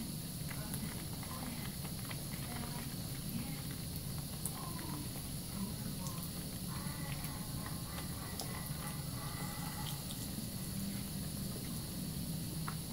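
Faucet running a thin, steady stream into a bathroom sink, with the wet squish and crackle of soapy lather being worked between hands.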